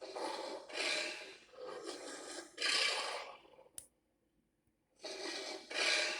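Varan's roar sound effect: a run of harsh, rasping pulses, one after another, then a pause of about a second before another rasp begins near the end.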